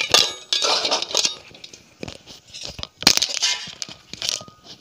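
Steel kitchen utensils clattering and clinking as they are handled: a ladle and vessels knocking together. The bursts are loudest in the first second and again about three seconds in.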